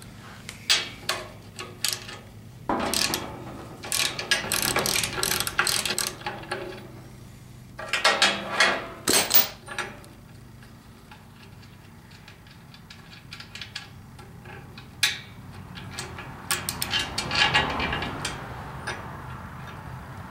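Hand wrench turning bolts on a steel mower bracket: several bursts of rapid metallic clicking with quieter pauses between them.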